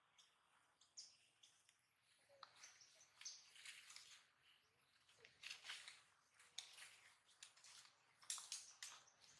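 Faint bird chirps: short, scattered high calls, more frequent after the first couple of seconds.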